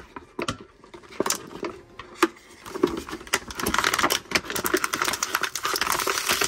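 Clear plastic blister tray crinkling and crackling as hands flex it to work an action figure free: a few sharp clicks at first, then denser crackling from about three seconds in.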